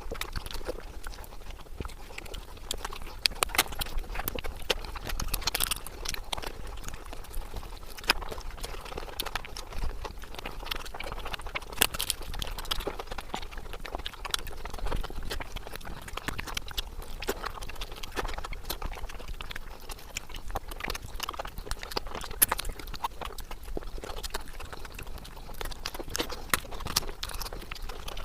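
Close-miked chewing of a mouthful of egg curry and rice, a steady run of irregular wet clicks and smacks from the mouth.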